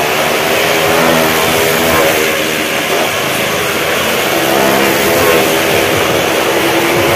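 Several motorcycles riding round the vertical wooden wall of a well-of-death drum, their engines running loud and continuous with the pitch rising and falling as the riders rev.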